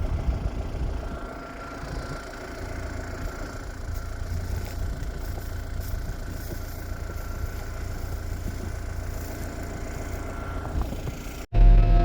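Farm tractor engine idling steadily with a low rumble. Near the end it cuts off abruptly, and a louder engine sound follows.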